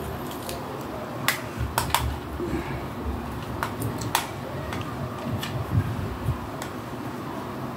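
Irregular sharp clicks and soft knocks from hands handling small objects, most of them in the first half, over a steady low room hum.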